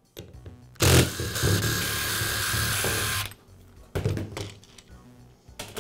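Cordless power driver running steadily for about two and a half seconds, backing out a screw from a hammer drill's plastic rear housing. A few short clicks follow as the loosened housing parts are handled.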